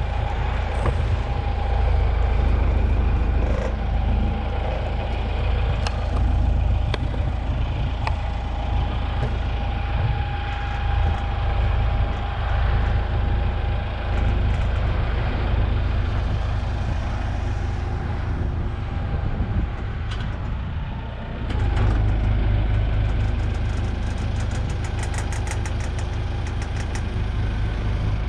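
An engine running steadily at idle, with a low, constant drone that dips briefly about two-thirds of the way in.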